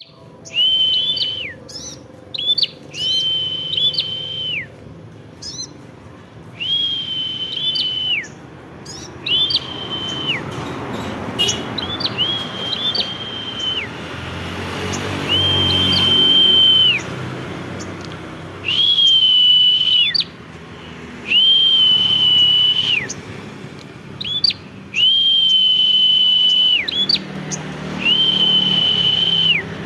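A songbird sings a run of about ten long, flat whistles, each held at one steady high pitch for one to two seconds and broken off abruptly, with short chirps between them. A low rumble swells in the background around the middle and again near the end.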